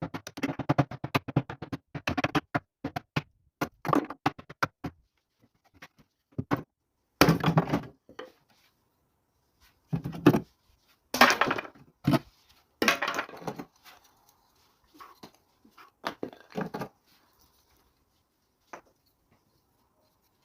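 Bursts of irregular knocking and clattering, with short pauses between them.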